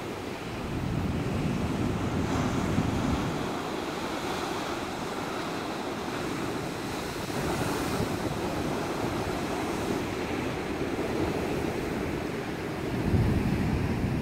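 Pacific Ocean surf breaking and washing over coastal rocks, a continuous rushing wash that swells louder about a second in and again near the end. Wind buffets the microphone with a low rumble.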